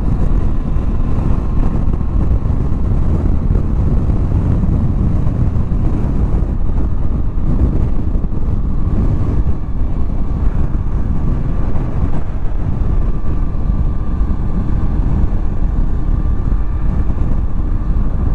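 Steady wind rush and engine and road noise from a motorcycle cruising at a constant speed, heard from the rider's position.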